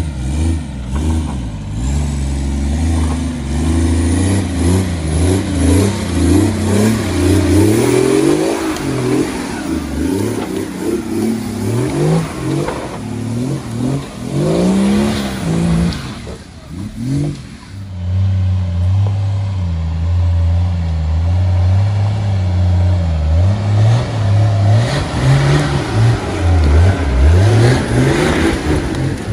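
Nissan Patrol's swapped BMW M57 twin-turbo diesel engine revving hard in repeated bursts, its pitch rising and falling as the truck works through deep mud. About sixteen seconds in there is a brief lull before the revving picks up again.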